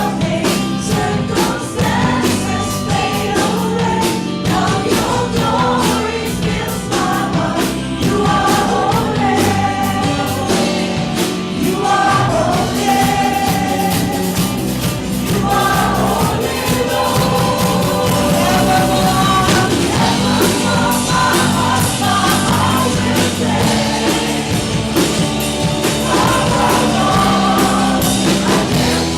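Live contemporary worship music: a church worship team and congregation singing together over a full band with drums.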